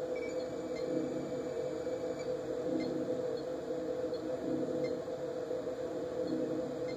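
A low, steady electronic drone with a soft pulsing underneath and a few faint high blips, from the TV episode's soundtrack playing through the television's speakers.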